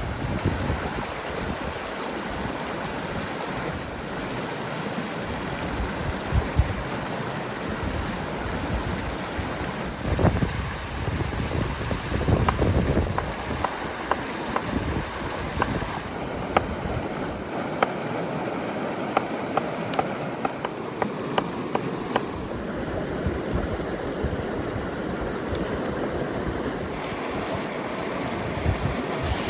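River water rushing steadily, with scattered sharp clicks and taps through the second half.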